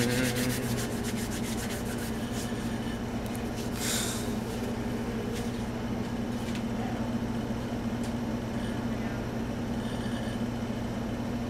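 Steady low electrical hum, with a brief rustling noise about four seconds in.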